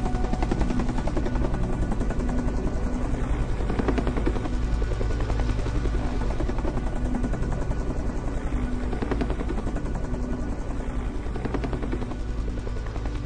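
Diesel engine of a Doosan DX55W wheel excavator running steadily with a fast, even firing pulse, easing off slightly near the end.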